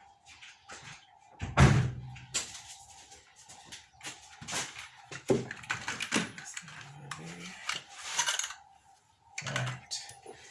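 Irregular clicks, knocks and rustle from new spark plugs and their packaging being handled, with the loudest knock about a second and a half in.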